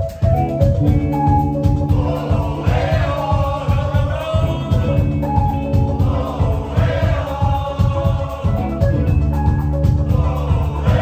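Live band music with a steady, driving beat, heavy on the drums and bass.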